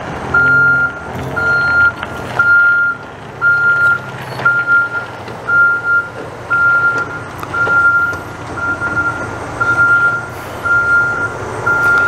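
A vehicle's reversing alarm beeping, one single-pitched beep about every second, a dozen in all, with the vehicle's engine running low underneath.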